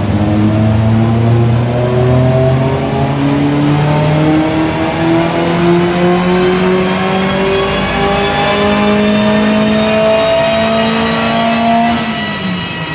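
SEV Rocket 2's engine pulling slowly and steadily up through the revs in one long, even run under load, as in a power run while the engine is being mapped on an Omex 600 ECU. The pitch drops away near the end as the throttle is closed.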